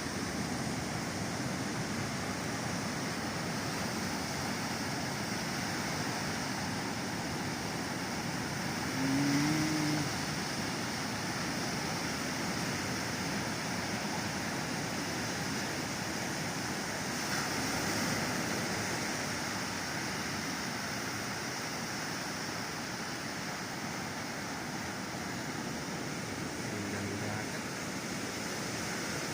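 Ocean surf washing steadily onto the beach. The sound swells briefly about eighteen seconds in, and a short pitched call is heard about nine seconds in.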